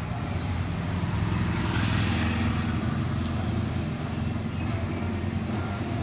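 A motor vehicle passing on a wet road. Tyre hiss swells to a peak about two seconds in and fades, over a steady low engine drone.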